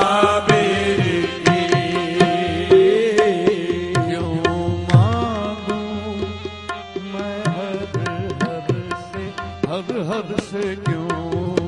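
Qawwali music: a harmonium holds a steady melody over quick tabla strokes. The lead voice sings wordless, wavering ornaments about five seconds in and again near the end.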